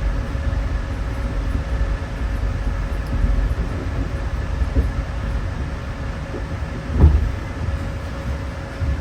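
Steady low rumble of a GO Transit bilevel passenger coach rolling along the track, heard from inside, with a faint steady hum over it and one louder thump about seven seconds in.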